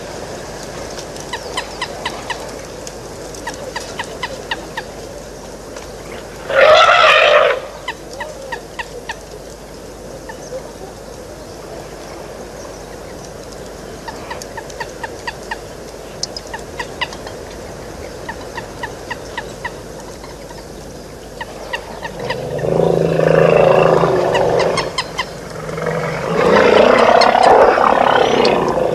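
Waterhole wildlife calling. About seven seconds in, an African elephant lets out one loud trumpet blast. Near the end come two longer, loud bouts of harsh honking from Egyptian geese, and short high peeps repeat through most of the rest.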